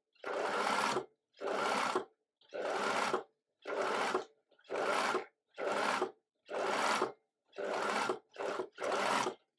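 Bernina electric sewing machine stitching a strap onto neoprene in about ten short runs of under a second each, stopping between runs as the fabric is turned to sew a small circle.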